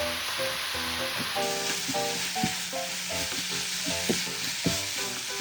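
Ground beef and chopped vegetables sizzling in olive oil in a frying pan. The sizzle grows louder about a second and a half in, with a couple of short knocks as the pan is stirred.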